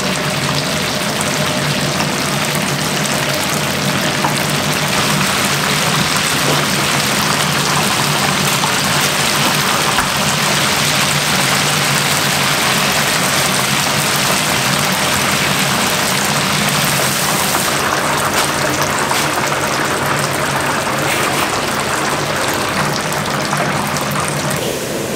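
Busy commercial Chinese kitchen: a steady rushing, hissing noise over a steady low hum of burners and extractor fans.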